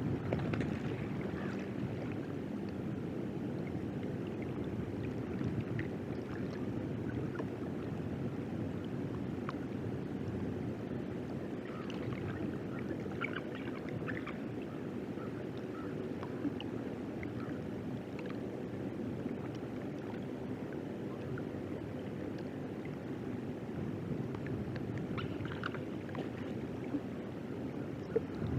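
Steady low rumble of wind and water noise on an outdoor wildlife camera's microphone, with a few faint, short high calls now and then.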